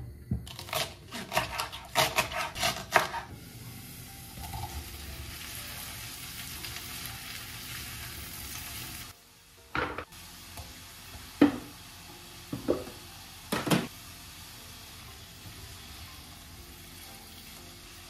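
Carrots and leeks sizzling in olive oil in a pot, a steady hiss throughout. In the first few seconds a burst of clattering and scraping from the utensil and lid against the pot, and later four sharp knocks against the pot.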